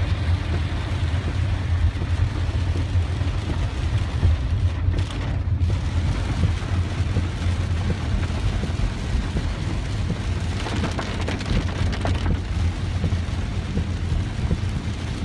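A car driving through heavy rain, heard from inside the cabin: a steady low rumble of engine and tyres with rain hitting the car.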